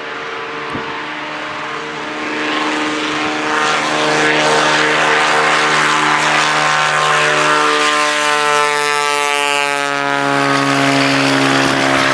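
Cessna 206's six-cylinder piston engine and propeller at take-off power, growing louder a couple of seconds in. Near the end its pitch slides down as the plane goes past.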